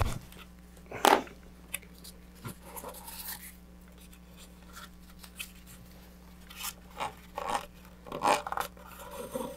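Scattered small snips, clicks and scrapes as the alignment string is cut and pulled out of a fiberglass rocket body tube, with the sharpest clicks right at the start and about a second in.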